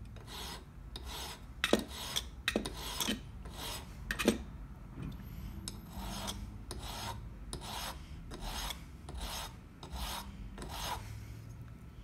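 Hand file rasping back and forth across a bit-key blank, about two strokes a second, touching up and grooving the key's bit. A few sharp clicks come in the first half, and the strokes ease off briefly near the middle.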